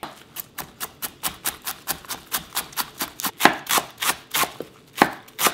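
Chef's knife chopping curly kale on a wooden cutting board in quick, even strokes, about five or six a second.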